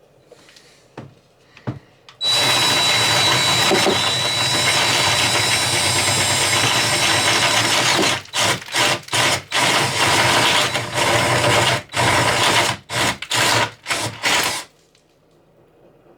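Power drill running steadily for about six seconds, then in a string of short stop-start bursts before stopping, after a few light clicks.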